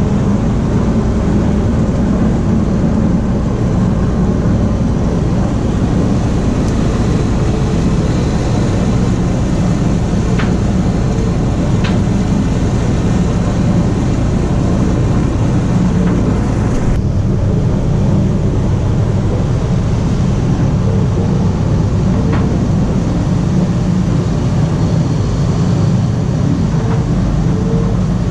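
Passenger ferry's engine running steadily, a constant low drone under a wash of hiss, with a few faint ticks. Just past halfway the upper hiss drops off abruptly while the drone carries on.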